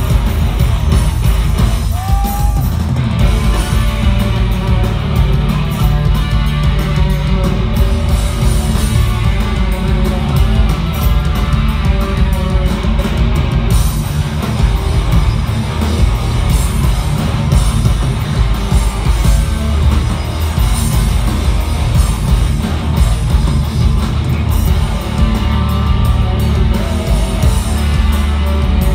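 Hardcore punk band playing live: electric guitars, bass and drums at full volume with a singer's voice over them, heard from inside the crowd.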